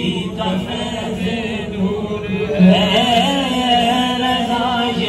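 A man singing an Urdu naat in a chant-like style, drawing out a long wavering note through the second half, over a steady low drone of background voices.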